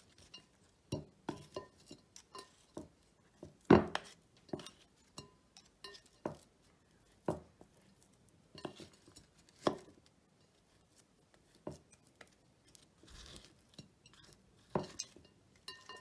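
Wooden spoon knocking and scraping against a white ceramic mixing bowl and a pine cone while a sticky lard-and-bird-seed mixture is spread on. There are irregular clinks and taps, the loudest about four seconds in, with quiet gaps between them.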